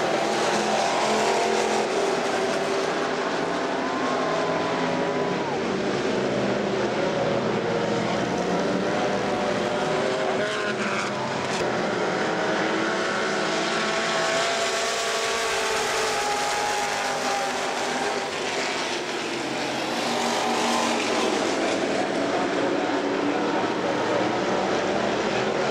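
Several Super Street dirt-track race cars running laps at speed. Their engines overlap, each note rising and falling as the cars pass and come off the corners.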